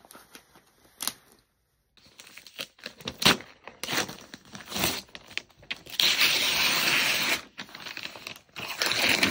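Paper gift wrapping being torn off a box by hand, with crinkling. Quiet at first apart from a single click about a second in, then short rips from about two seconds, and longer, louder tears about six seconds in and again near the end.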